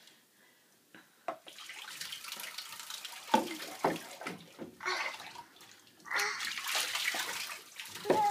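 Bathwater splashing and sloshing in a tub as a toddler plays, starting after about a second, with a few short sharp splashes and louder stretches of splashing near the middle and between about six and seven and a half seconds.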